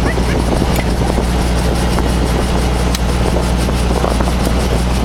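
Robinson R44 Raven helicopter running on the ground, heard from inside the cabin: a loud, steady piston-engine and main-rotor drone with a low hum.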